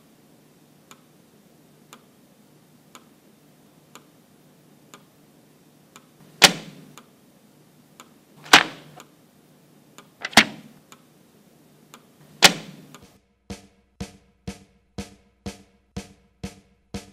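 A pencil tapping on a desk: faint ticks about once a second, then four loud knocks about two seconds apart, then a quicker run of taps about two a second near the end.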